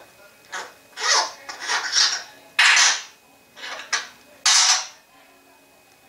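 African grey parrot making a run of six short, raspy hissing noises, each about half a second long, with brief gaps between them.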